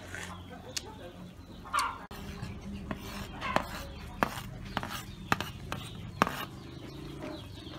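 A wooden chopping board knocked against the rim of a metal soup pot to shake chopped green onions in: about seven sharp taps, roughly two a second, from about three seconds in.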